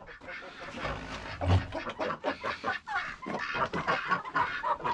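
A flock of domestic ducks and chickens calling all at once, a busy overlapping mix of quacks and clucks, as a bowl of grain is brought to them at feeding time.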